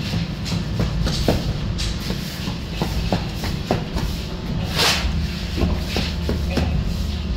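Flat steel shovel scraping and scooping through a pile of dry cement-and-sand mix on a concrete floor: a run of short scrapes and clinks, with one longer, louder scrape a little before five seconds in. A steady low rumble runs underneath.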